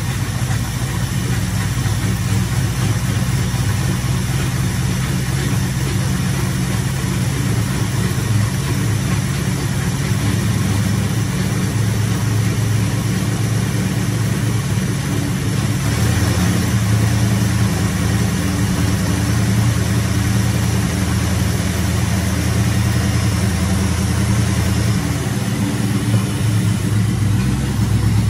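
Carbureted car engine running at a steady idle, its note shifting slightly about sixteen seconds in and again near the end.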